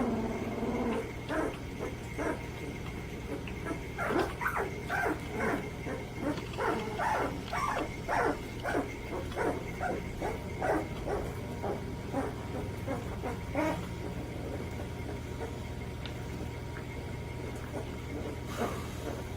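Chocolate Labrador puppies yipping and barking: a quick run of short, high calls through the middle few seconds, with only a few scattered yips before and after.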